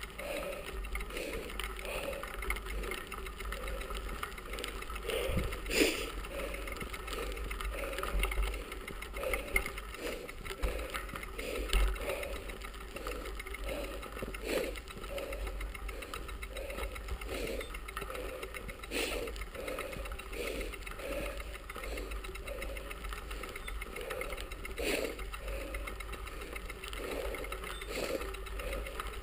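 Bicycle being ridden on a gravel carriage road: a rhythmic mechanical noise from the drivetrain and pedalling, about one and a half beats a second, over tyre noise and low wind rumble on the handlebar-mounted microphone, with a few sharp clicks.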